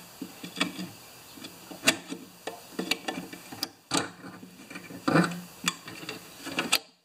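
Pliers and a steel coil spring clicking and scraping against a thatcher blade as the spring's tines are worked into place, in irregular sharp metallic ticks with the loudest about two seconds in.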